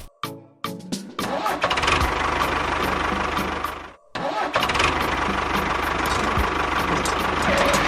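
A few sharp clicks, then an engine starts and runs with a fast, even low rumble. It cuts out for a moment about four seconds in and starts running again.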